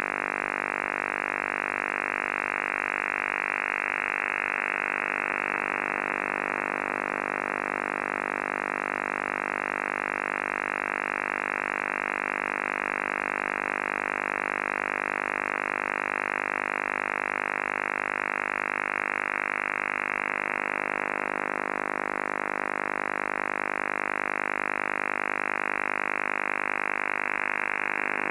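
An unidentified signal received on the 11-metre CB band, heard through the radio as a steady, buzzing drone of many held tones. It has the thin, muffled sound of radio audio and swells slightly a few times.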